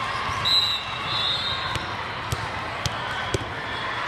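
Busy indoor volleyball hall: a steady din of crowd chatter, with a few sharp thuds of balls bouncing on the hard court floor in the second half and two short high-pitched squeaks near the start.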